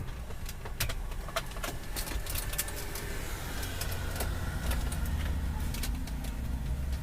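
Scattered sharp plastic clicks and small rattles of a car's dashboard climate-control panel being worked loose and its connectors unplugged, over a low steady rumble.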